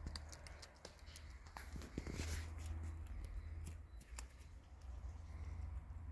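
Faint clicking and smacking of a cat chewing food from a plastic dish, with scattered small ticks over a low steady rumble.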